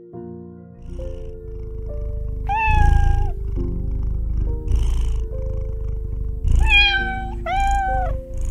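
A grey Scottish Fold cat purring with a continuous low rumble and meowing three times. The first meow comes a few seconds in; the other two come close together near the end.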